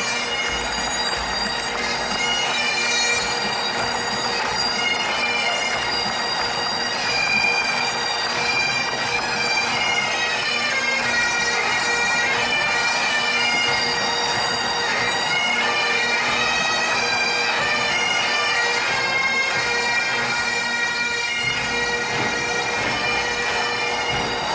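Highland bagpipes playing a tune over their steady drone.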